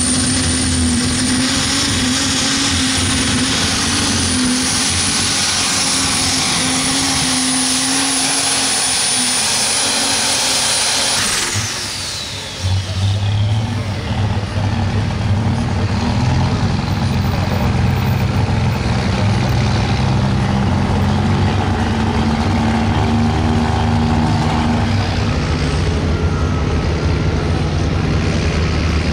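Light super stock pulling tractor's turbocharged diesel engine running hard, with a high turbocharger whine that holds steady, then winds down about eleven seconds in as the engine lets off. After that an engine keeps running at a lower, steadier pitch.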